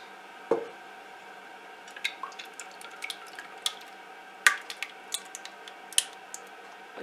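A knock about half a second in, then thick liquid jelly mixture pouring from a saucepan into a glass dish, with irregular drips and splashes.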